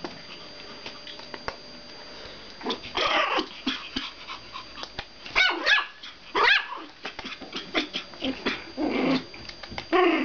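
Puppy barking and yipping in short bursts from about three seconds in, with sharp high yips around the middle.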